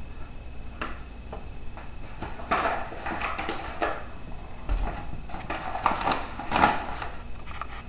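Hands working pizza dough in a stainless steel mixing bowl: irregular scraping and rubbing against the metal, with a few light knocks of the bowl.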